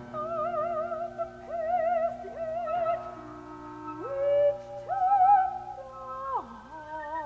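Modern chamber ensemble playing contemporary classical music: several held notes with a wide, wavering vibrato over a low sustained tone, stepping and sliding between pitches, with a falling slide near the end.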